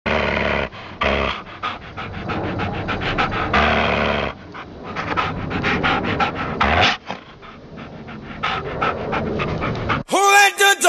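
Dogs fighting: a dense, continuous run of dog noise that eases off about seven seconds in. Music starts abruptly near the end.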